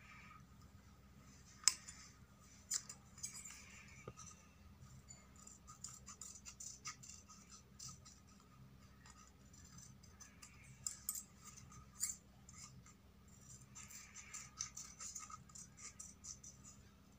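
Scissors cutting small pieces of thin green craft paper: a scattered series of quick, sharp snips with light paper rustling between them.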